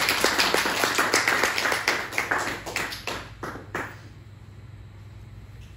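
Audience applauding a speaker to the floor, the clapping thinning out and stopping about four seconds in, leaving only a low steady hum.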